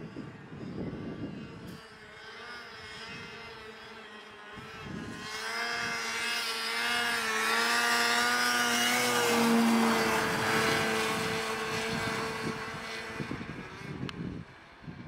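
Snowmobile engine running under throttle as the sled crosses the field. It grows louder over several seconds, is loudest a little past the middle, then fades.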